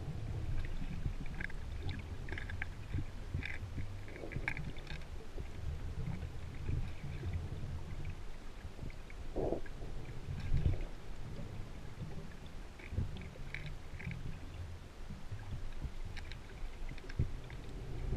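Underwater rumble and gurgling of a scuba diver's exhaled bubbles, with scattered faint clicks.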